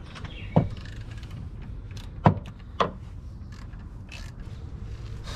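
Three sharp metallic knocks of hand tools against the car's suspension and axle parts, the second the loudest, each ringing briefly; a short hiss follows later.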